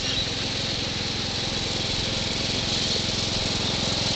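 Small engine of a ride-on mower running steadily, with a fast, even rattle.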